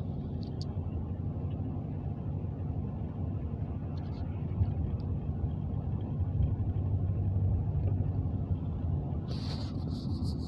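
Steady low rumble of a car's engine and tyres on the road, heard from inside the cabin while driving. Near the end come a few brief hissy rustles.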